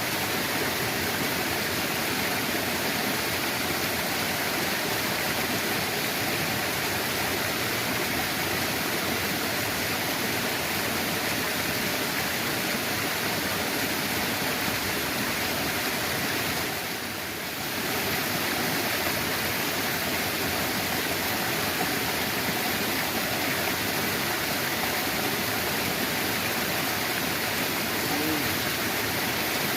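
Steady rush of water pouring from a pond's outflow into the channel below, dipping briefly for about a second halfway through.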